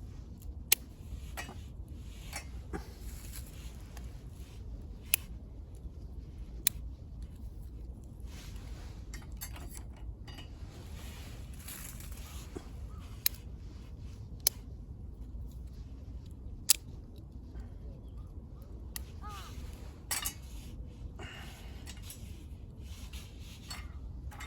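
Wood burning in a small camp wood stove, crackling with a few sharp, scattered pops over a low steady rumble.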